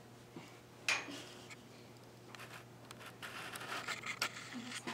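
Light handling noises while a fly bonnet is fitted over a pony's ears: soft rustling and scratching of the fabric and tack, with one sharp click about a second in.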